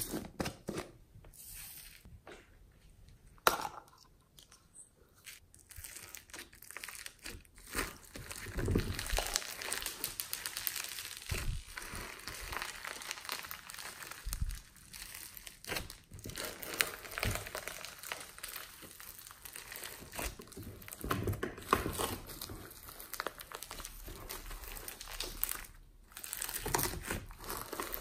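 Slime ASMR: a few sparse clicks and squishes at first, then, from about eight seconds in, a steady close crackling and crinkling as hands squeeze and knead glossy slime packed with foam beads.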